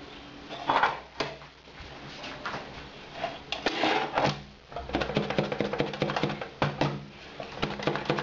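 Bread maker's metal baking pan, held upside down, being knocked and shaken against a plastic cutting board to free the baked loaf. A few single knocks early on, then a fast clattering run of knocks in the second half.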